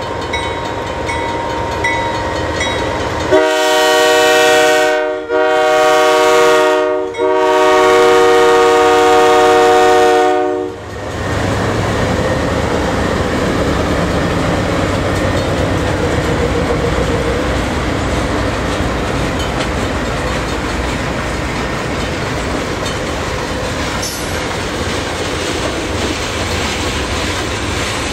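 CN GE C44-9W diesel-electric locomotives sounding a multi-chime air horn in three blasts over about seven seconds, the last the longest. Then the locomotives and freight cars rumble steadily past.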